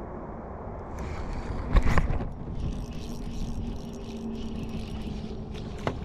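Spinning reel being cranked over a steady rumble of wind on the microphone, with a loud thump about two seconds in, then fast steady reeling with a faint hum under it, as a fish is struck and the line wound in.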